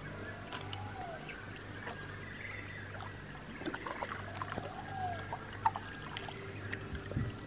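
Wooden canoe paddle dipping into calm water and dripping: uneven splashes and trickles through the second half, the loudest a little before the end. A steady low hum sits underneath, and two short rising-and-falling whistled calls come near the start and in the middle.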